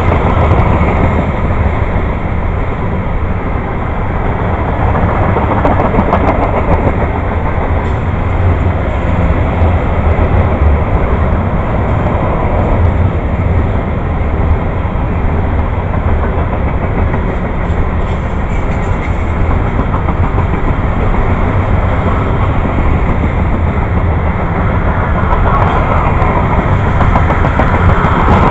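A freight train's open-top cars rolling past close by: a loud, steady rumble of steel wheels on the rails.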